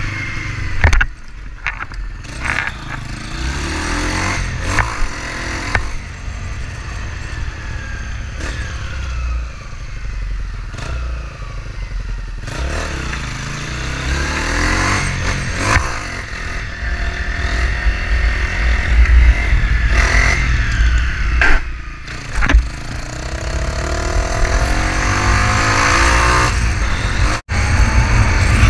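Small motorcycle engine revving up and dropping back again and again as the rider shifts through the gears, with wind buffeting the camera microphone.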